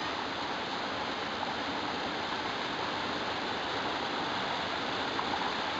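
Water rushing steadily down a small waterfall over rocks in a mountain stream.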